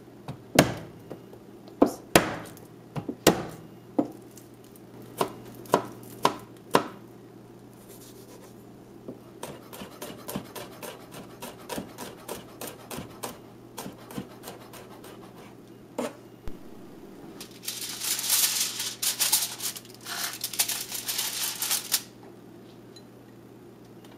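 Chef's knife chopping garlic cloves on a plastic cutting board: sharp separate strikes for the first several seconds, then quicker, lighter taps as the garlic is minced. Near the end, a few seconds of crackly rustling.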